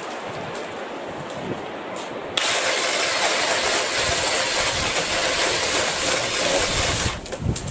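BLACK+DECKER 18V cordless saw running, switching on suddenly a couple of seconds in and stopping abruptly about five seconds later. Wind noise on the microphone before it starts.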